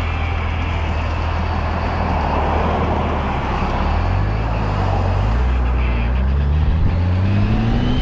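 Honda GL1800 Gold Wing's flat-six engine pulling under way, its note rising steadily through the second half as the motorcycle accelerates, over a constant hiss of wind and road noise.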